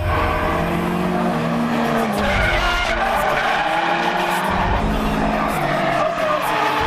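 Subaru Impreza flat-four engines revving, their notes rising and falling several times, with tyres skidding as the cars slide sideways through a corner on a circuit.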